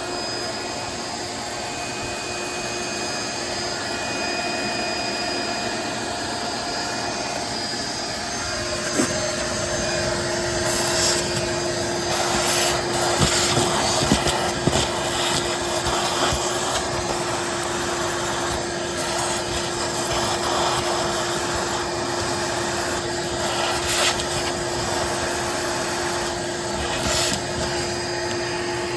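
Steady mechanical running noise with a constant whine that comes in about a third of the way through, and scattered knocks and rattles over the middle stretch.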